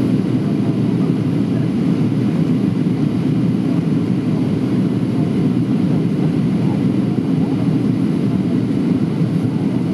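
Steady, unbroken cabin noise of a Boeing 737-700 in flight on final descent, heard from inside the passenger cabin, deep and even with no distinct events.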